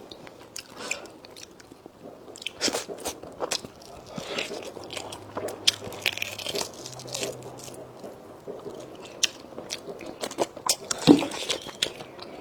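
A person chewing and crunching food with irregular wet clicks and crackles of biting, with one sharper, louder click near the end.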